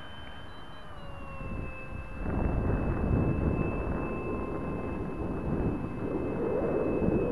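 Habu RC model jet flying past, its ducted fan giving a steady high whine that drops in pitch about a second in as it goes by. A louder rushing noise sets in about two seconds in and continues.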